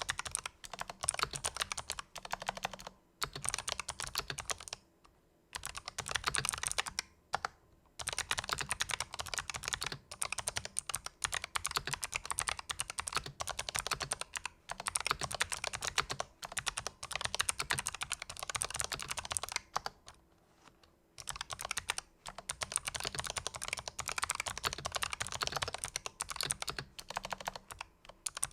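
Fast typing on a Razer Huntsman Elite with fully lubricated purple clicky optical switches: dense runs of keystrokes with a few short pauses.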